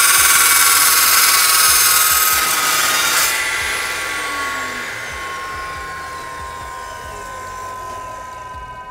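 Dewalt DW872 slow-speed metal cutting saw with a carbide-tipped blade cutting through square steel box tube, a loud high screech that ends about three seconds in. The blade then keeps turning with a whine that falls steadily in pitch and fades as it spins down.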